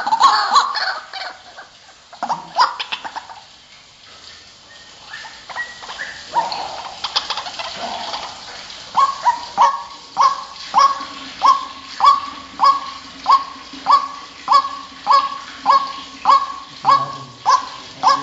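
White-breasted waterhens calling: scattered, irregular calls at first, then from about nine seconds a steady run of short, evenly repeated notes, a little under two a second.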